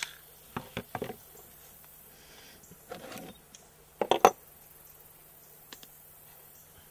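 Handling noise as a small turtle is picked up and turned over in the hands: a few scattered clicks and knocks, the loudest pair about four seconds in, over a faint steady low hum.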